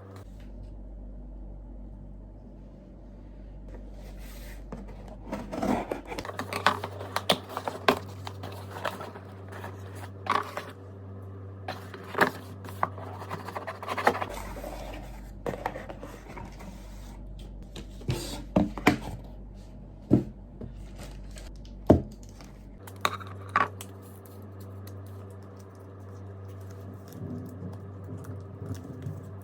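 Scattered scrapes, taps and tearing sounds of objects being handled, busiest in the middle, over soft background music with a steady low bass.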